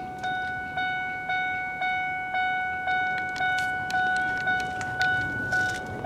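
The Ford F-150's electronic warning chime dings steadily, about twice a second, each ding fading before the next. The truck's door stands open, which is the usual cause of this chime. A few faint clicks sound in the middle.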